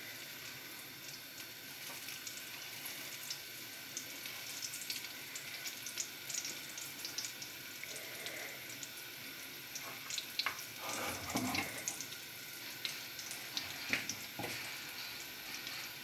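Pancake batter frying in melted butter in a frying pan over medium heat: a steady hiss full of small crackles. A few light knocks of a metal spatula against the pan come in the second half.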